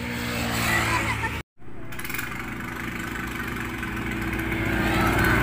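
Road vehicle engines running past: a motor scooter early on, then, after a brief cut-out about one and a half seconds in, a loaded cargo truck and a motorcycle approaching, their engine sound growing steadily louder.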